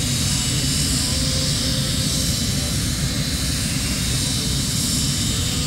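Airplane engines running steadily, a constant low rumble with a faint high whine.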